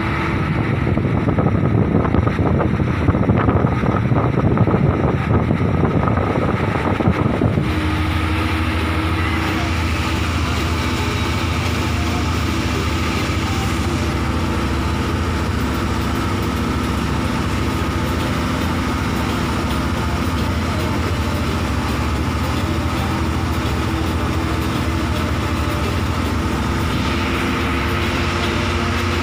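Bus engine and road noise heard from inside the cabin, a continuous steady drone with a low hum. For the first several seconds a loud rushing noise sits on top, then cuts off suddenly, leaving the steadier drone.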